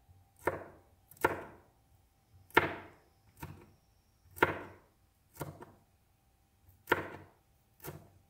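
Knife chopping asparagus tips on a cutting board: about eight separate strokes, roughly one a second and unevenly spaced.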